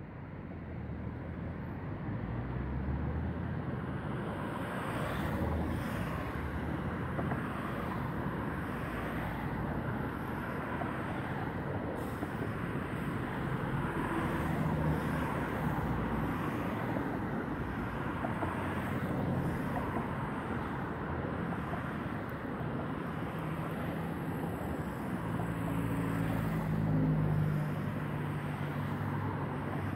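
Steady city traffic noise, fading in over the first couple of seconds. A low engine hum swells twice, around the middle and again near the end.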